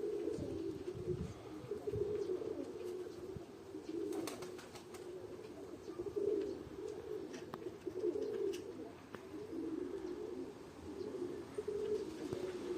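Domestic pigeons cooing over and over in low, pulsing phrases, with a few sharp clicks about four to five seconds in.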